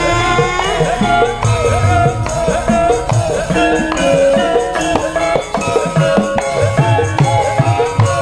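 Live Javanese gamelan music, an instrumental passage: a wavering melody line over steady drum beats and bright, rattling percussion strikes.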